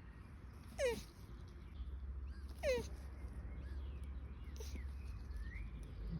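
A mating turtle making short squeaky calls, each sliding down in pitch: two loud ones about two seconds apart, then a fainter one.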